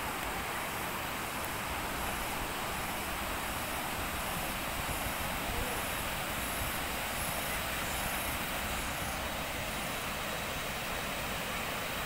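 Steady rush of waterfall water running over rock cascades, an even noise without breaks.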